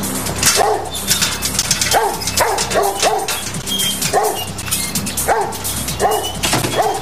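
German shepherd barking repeatedly, about nine short barks in irregular runs, over background music.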